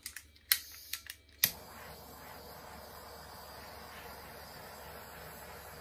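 Handheld torch being lit: several sharp igniter clicks, the last as it catches about a second and a half in, then the flame hisses steadily.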